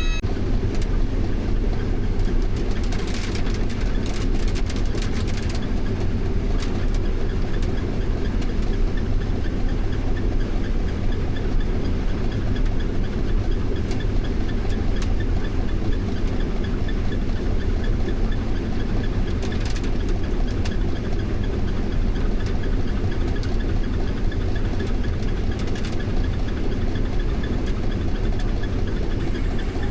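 Heavy diesel farm machinery running steadily under load, with a few short rattles or clicks.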